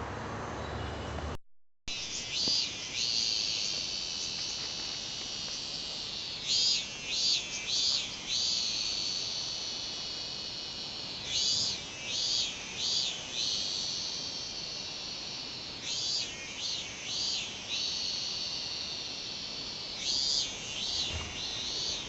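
Robust cicada (minminzemi) singing: a steady high buzzing with a group of three or four louder, pulsing 'meen-meen' calls about every four to five seconds. A different, lower noise runs before it and cuts off about a second and a half in, followed by a brief silence.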